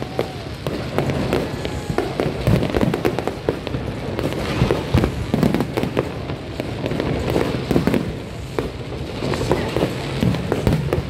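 Fireworks display: aerial shells bursting overhead in a dense barrage of many overlapping bangs, with no let-up.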